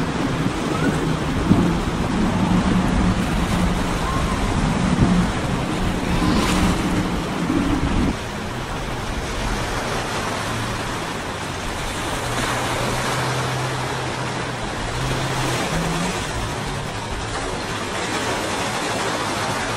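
Multiple outboard motors on center-console boats running at speed through choppy inlet water, with wind and surf. About eight seconds in the sound drops to a more distant boat engine's steady drone over waves and wind.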